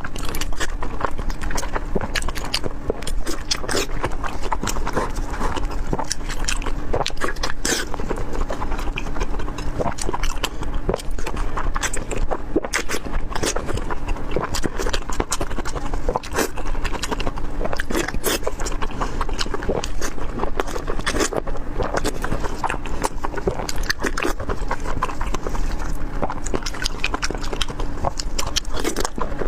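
Close-up crunching and chewing of crispy fried chops, a dense run of sharp crackly bites that goes on throughout.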